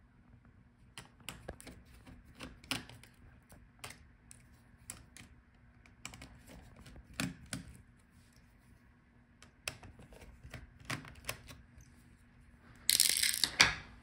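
Small irregular clicks and taps of fingers handling cable connectors and parts inside an opened Dell Latitude 7420 laptop, as it is readied for motherboard removal. A short, louder rustling burst comes near the end.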